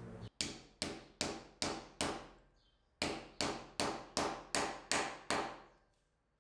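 Small mallet tapping a fitting down into a turned wooden pepper-grinder body to seat it. There are five even taps, about two and a half a second, then a short pause and seven more, each with a brief ringing decay.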